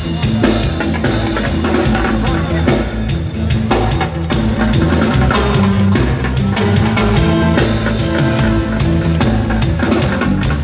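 Live reggae band playing an instrumental stretch of a song, drum kit and bass keeping a steady beat under guitar.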